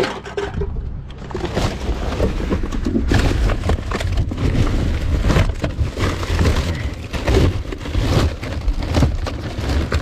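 Plastic bags and rubbish rustling and crinkling as gloved hands rummage through a bin, in a dense, irregular run of crackles.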